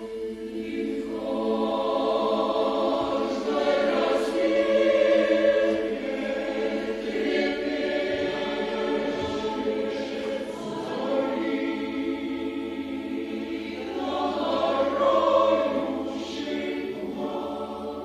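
Mixed choir of women's and men's voices singing unaccompanied in sustained chords, swelling twice and softening near the end.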